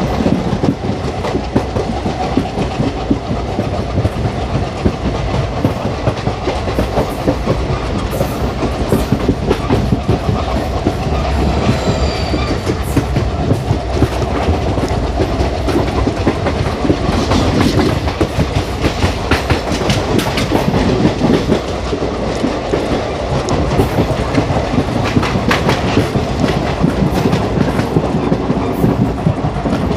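Wheels of an ICF passenger coach running over the track, a steady clickety-clack of rail joints over the continuous rumble of the moving train.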